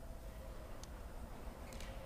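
Quiet background ambience: a faint low hum with a faint steady tone, and two faint ticks about a second apart.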